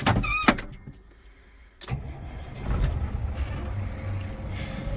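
New Holland 7840 tractor's six-cylinder diesel engine starting up: a click and a brief beep as the key is turned, a pause, then the engine catches about two seconds in and settles into a steady idle.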